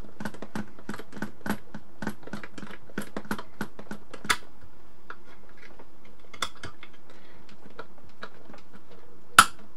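Quick light metal clicks and ticks as a small screw is turned to fasten a foot to the aluminium instrument case, about three or four a second at first, then thinning out, with one sharper click near the end.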